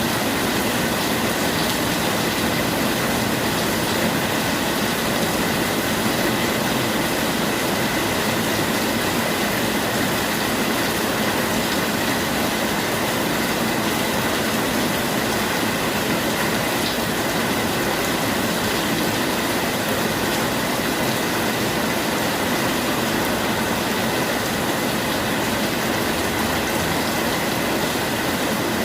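Steady heavy rain, an even hiss of falling water that holds constant throughout.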